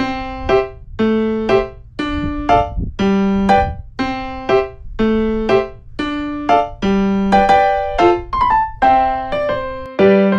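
Background music: a piano tune with notes struck in an even, repeating pattern.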